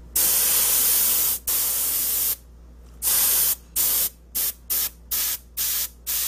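Gravity-feed airbrush spraying a coat of clear floor wax, hissing in separate bursts: two long bursts of about a second each, then shorter and shorter puffs, about nine in all.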